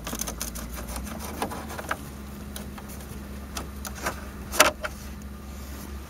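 Scattered light clicks and knocks of a hand tool against dashboard parts as a 7mm screw is taken out of the dash end, with one sharper knock about four and a half seconds in.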